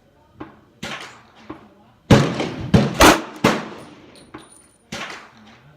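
A string of pistol shots from a 1911 in .38 Super. Four loud shots come in quick succession from about two seconds in, with fainter shots before and after them.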